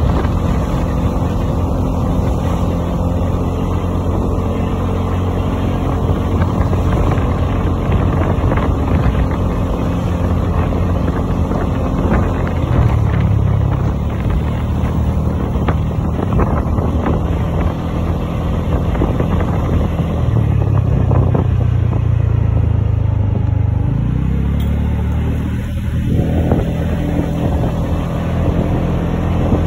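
Small motor scooter engine running on the move, its note shifting a few times with speed, under heavy wind rumble on the microphone.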